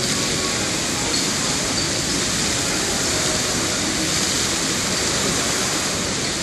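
Many fountain water jets spraying and falling back onto the water, a steady, even rushing hiss of splashing water.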